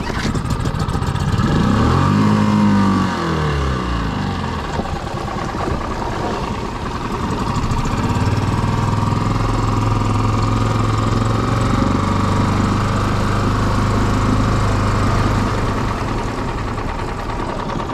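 Small Mercury tiller outboard motor pull-started: it catches, revs up and back down, then settles into a steady run.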